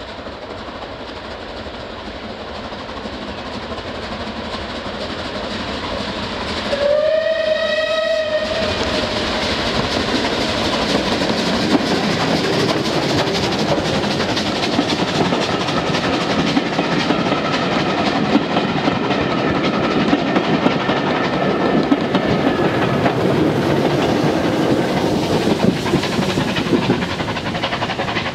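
Bulleid light pacific steam locomotive approaching, growing louder, and sounding a short whistle about seven seconds in; then its train of coaches clattering past over the rail joints.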